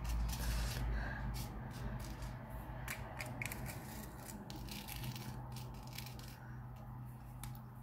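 Loose plastic sequins being sprinkled by hand onto a card, with light, irregular ticks and rustles as they drop and are pushed around, plus clicks from turning the lid of a divided plastic sequin container. A steady low hum lies underneath.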